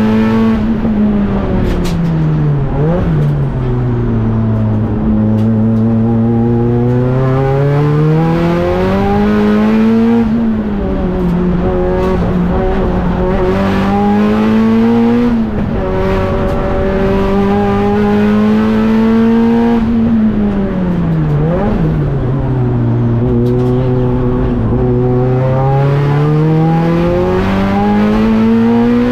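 Nissan Silvia S15 race car's engine on a hard lap. Revs fall under braking with a quick throttle blip about three seconds in, then climb through the gears, with sharp drops at upshifts about ten and fifteen seconds in. The revs hold steady, fall again with another blip just past twenty seconds, and climb once more.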